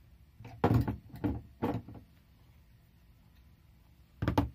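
Knocks and clunks of hand tools being handled and set down on a rubber-matted workbench, among them a small brass machinist's hammer: a few quick taps about half a second to two seconds in, and a louder clunk near the end.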